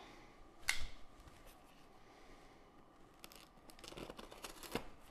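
A knife blade slitting packing tape on a cardboard box: faint scratching and small clicks in the second half, growing louder toward the end. One sharp click comes about a second in.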